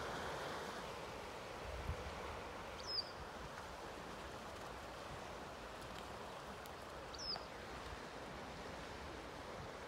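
Steady, faint wash of surf and breeze at the shore, with two short high bird chirps about four seconds apart and a brief low thump about two seconds in.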